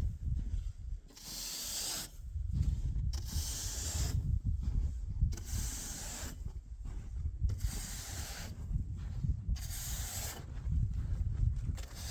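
A broom sweeping snow off solar panels: repeated brushing swishes, about one every second and a half.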